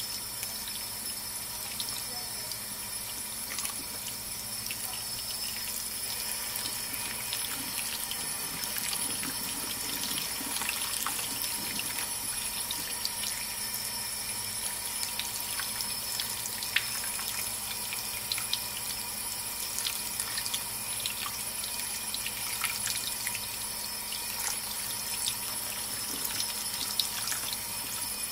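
Kitchen faucet running a steady stream of water into a cheesecloth-lined colander in the sink, rinsing cottage cheese curds, with scattered small splashes and ticks as fingers work the curds apart under the stream.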